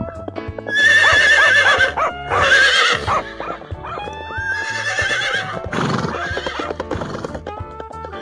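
Horse whinnying, several loud quavering neighs in the first half and another around the middle, over background music.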